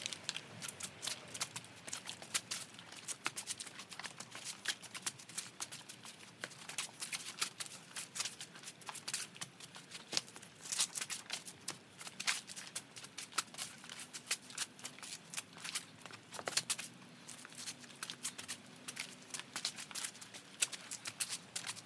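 Longsword flourishing in hard-plated HEMA sparring gloves (Sparring Gloves Infinity Gauntlets). The glove plates and sword grip give a continuous stream of quick, irregular clicks and clacks, with a few louder knocks about 11, 12 and 16 seconds in.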